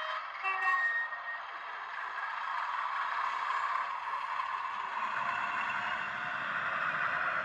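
OO gauge model train running along the track: a steady rolling rumble and rattle of wheels and motor, with more low rumble from about five seconds in. A brief chime of a few pitched notes sounds in the first second.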